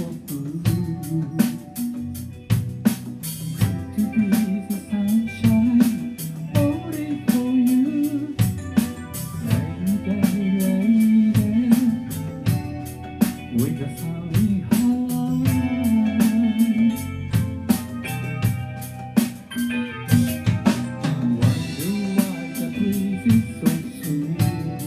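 A live rock band plays a song: a drum kit keeps a steady beat on snare and cymbals under electric bass and electric guitar.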